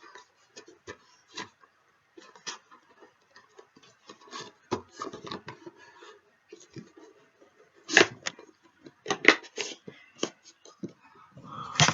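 Hands handling a GoPro Hero 3 camera and its packaging: scattered clicks, taps and light rustling, with a few sharper clicks about two-thirds of the way in and again near the end.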